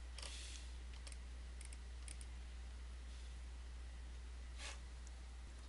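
A few faint, scattered clicks from computer mouse and keyboard use, over a low steady electrical hum.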